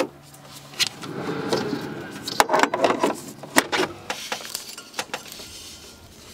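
Handling noise from plugging a 12-volt pump cable into a portable power station: a sharp click at the start, then about three seconds of clattering and clicking plastic plugs and cables, with a few scattered clicks after.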